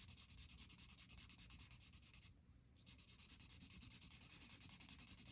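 Marker tip rubbing quickly back and forth on paper while colouring in, with a short pause about two and a half seconds in.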